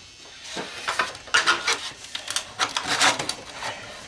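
A quick run of light metallic clinks and taps, starting about half a second in and coming thickest through the second half, as of small hard metal pieces knocking together.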